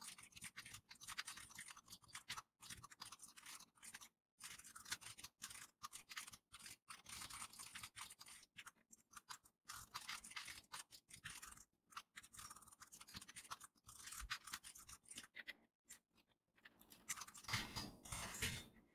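Computer keyboard typing played back fast-forwarded: a faint, dense, rapid clatter of keystrokes broken by short pauses, a little louder near the end.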